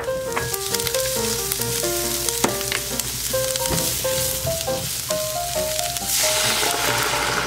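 Diced onion sizzling in a hot frying pan as it is stirred with a silicone spatula, with a few light taps of the spatula on the pan. Near the end milk is poured in and the hiss grows louder. Light background music with a plucked melody plays over it.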